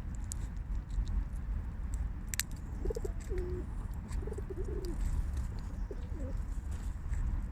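Pigeon cooing, three short wavering coos in the second half, over a steady low rumble, with one short sharp burst about two and a half seconds in.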